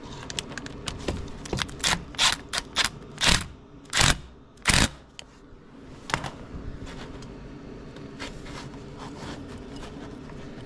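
Metal tool clicks and clatter as the nut on a car's A/C compressor clutch plate is snugged down, with three short louder bursts about three to five seconds in, a few more clicks about six seconds in, then only a low steady background.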